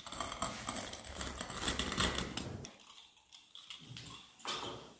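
A wheel pizza cutter rolling through a baked pizza's crisp crust: a dense crackling crunch of many small clicks for the first two and a half seconds, then much quieter, with one short sound about four and a half seconds in.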